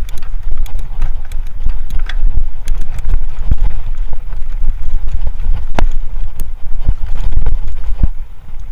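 Kona Honzo hardtail mountain bike being ridden over rough trail: wind buffets the microphone with a heavy steady rumble, and the bike rattles with many scattered sharp clicks and knocks.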